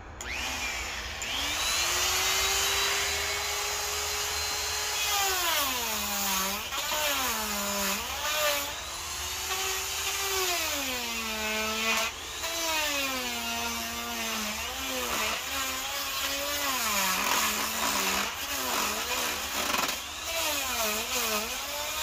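Makita electric die grinder with a carving burr spinning up to a steady whine, then grinding into alder wood. From about five seconds in, the pitch drops each time the burr bites and the motor slows under load, and it climbs back as the cut eases, over a gritty hiss of wood being ground away.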